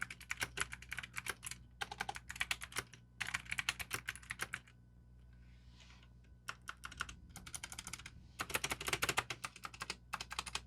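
Typing on a Huiccn 60% wireless mechanical keyboard with clicky black optical switches: fast runs of keystrokes broken by short pauses, with a longer break of about two seconds midway. It sounds pretty rattly.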